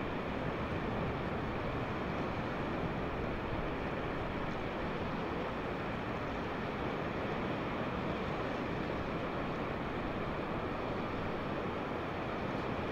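Steady seaside ambience: an even rush of wind and surf with no distinct events.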